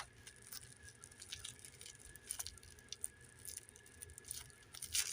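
Faint, scattered clicks and rustling of duct-taped packaging being handled and cut open.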